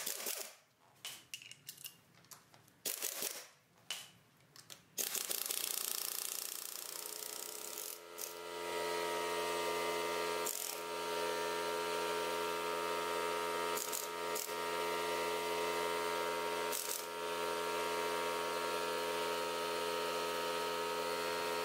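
Air impact wrench running in short bursts over the first few seconds as it loosens the lug nuts on a pickup's front wheel. After that a steady machine hum with a fixed pitch takes over and runs on.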